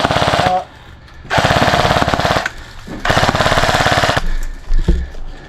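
Airsoft rifle firing three rapid full-auto bursts, each about a second long, followed by a short low thump near the end.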